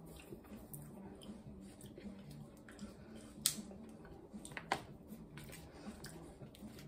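Shells of freshly roasted chestnuts cracking and crinkling as they are peeled by hand: scattered small sharp clicks and cracks, the loudest about three and a half seconds in and another near five seconds.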